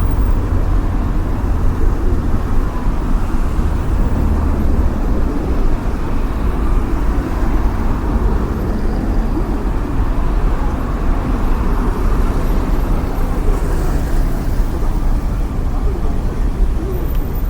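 City street ambience: a steady rumble of passing road traffic, with a deep low hum throughout and faint indistinct sounds mixed in.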